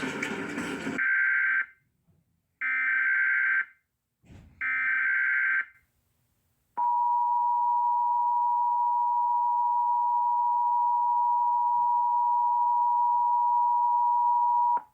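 Start of an Emergency Alert System relay: the end of a broadcast cuts off, then three bursts of the EAS digital header (SAME data tone), each about a second long. About seven seconds in, the EAS attention signal begins: a steady two-tone beep (853 and 960 Hz) held for about eight seconds.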